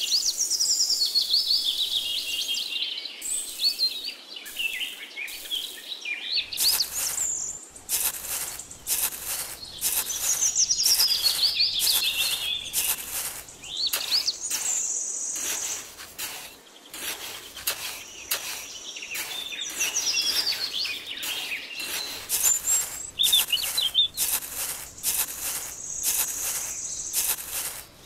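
Small birds chirping and calling in quick high glides. From about six seconds in, there are many short scrapes and crunches of a miniature spade cutting into and scooping damp sand.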